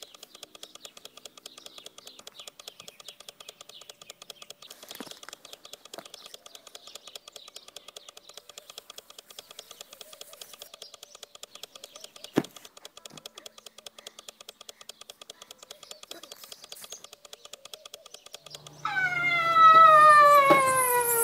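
Faint, fast, even ticking over a quiet steady hum, with one sharp click about two-thirds of the way in. Near the end, a loud, long sliding tone with overtones begins and falls steadily in pitch over about three seconds: the sound of falling down the rabbit hole.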